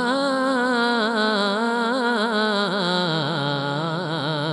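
A man sings a naat (devotional Punjabi/Urdu hymn) in long, drawn-out notes with quick wavering ornaments, with no clear words in this stretch.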